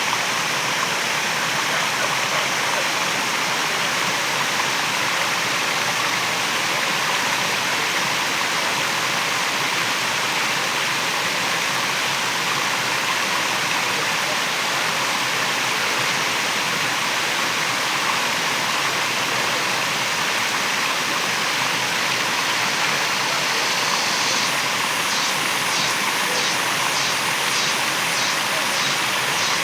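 Waterfall: a steady rush of falling water. Near the end a high, rhythmic pulsing, about two pulses a second, joins in.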